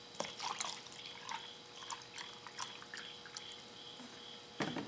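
Pre-mixed coolant being poured into a measuring container. Splashes and light knocks come in the first second, scattered clicks follow, and there is a louder thump near the end.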